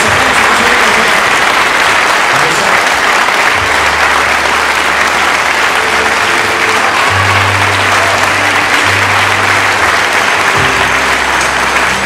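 A crowd applauding steadily over music, with held bass notes coming in about three and a half seconds in.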